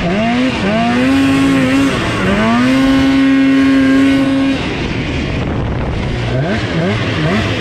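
Polaris IQR snowmobile's two-stroke engine revving hard as the sled rides across snow. The revs climb in a few pulls and hold at a steady high pitch for about two seconds, then drop off about halfway through. Near the end the throttle is blipped in quick rising and falling bursts.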